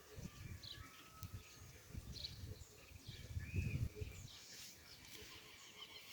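Faint, scattered bird chirps and short whistled glides, over irregular low rumbling and bumping that is loudest about three and a half seconds in.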